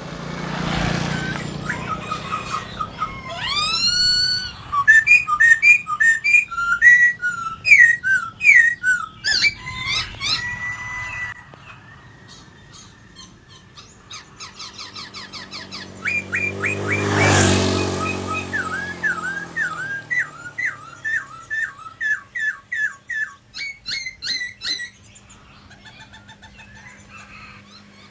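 A poksai (laughingthrush) singing loud, varied whistled phrases: rising and falling glides and rapid runs of repeated notes, in two long bouts with a pause between them. A brief rushing noise sounds near the start, and a louder rumbling swell peaks in the middle.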